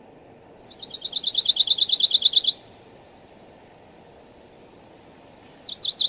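Pine warbler singing: a sweet, clear musical trill of rapid repeated notes, about ten a second, lasting about two seconds, followed near the end by the start of a second trill.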